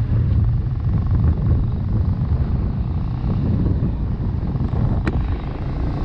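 Riding on a moving motorbike: wind buffeting the microphone in a heavy, uneven rumble over the engine running.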